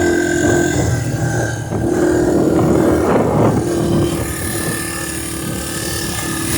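A vehicle engine holding a steady pitch, dropping out briefly about a second in and again about three seconds in, with wind buffeting the microphone.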